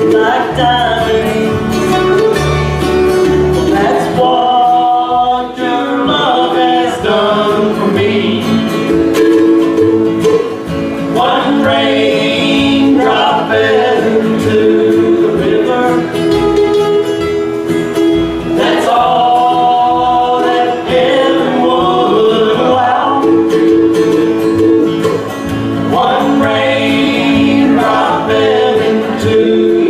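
Bluegrass band playing and singing, with acoustic guitar and upright bass among the string instruments.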